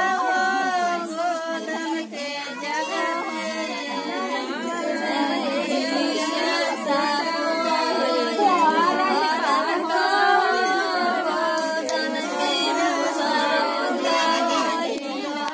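A group of women singing together without instruments, several voices overlapping.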